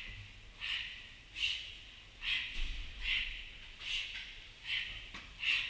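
A man's hard rhythmic breathing: a sharp, hissy huff with each hand-over-hand pull of a thick training rope, about one every 0.8 seconds.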